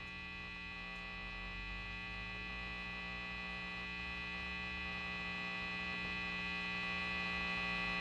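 Steady electrical hum with a stack of even overtones, slowly getting louder.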